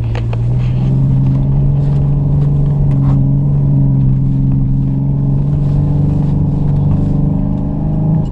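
Jeep Wrangler engine pulling steadily under load as it climbs a snow-covered road. Its pitch rises about a second in, then holds even.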